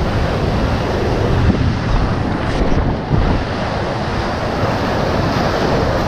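Surf surging and foaming over shoreline boulders, with wind buffeting the microphone.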